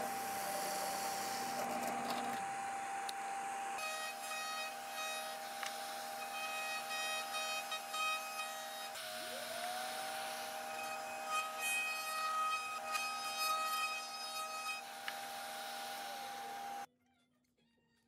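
Woodworking power tools running: a drill press boring into a red hardwood wheel, then a trim router in a router table shaping the wooden wheels, with a steady motor whine and high tones. About nine seconds in the motor winds down and spins straight back up, and the sound cuts off suddenly near the end.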